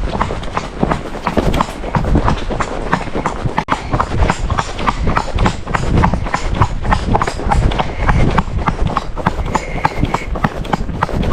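Ex-racehorse's hooves clip-clopping in a steady, even rhythm of hoofbeats as she is ridden along.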